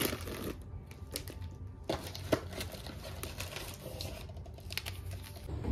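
Plastic water bottles knocking and their shrink-wrap crinkling as a bottle is pulled from a case of bottled water, in a run of irregular clicks and taps with one sharper knock about two seconds in.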